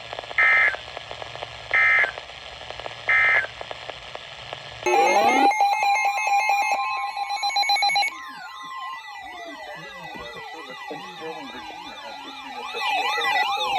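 Three short, identical bursts of Emergency Alert System digital data tones, the end-of-message signal closing the warning. About five seconds in, a loud electronic siren-like alert sound follows, with steady tones, a rapid warble and long falling sweeps.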